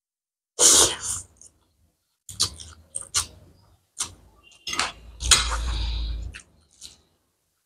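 A person slurping spicy instant noodles close to the microphone: a loud slurp about half a second in, then a run of short wet clicks and smacks of chewing, and a second, longer slurp about five seconds in.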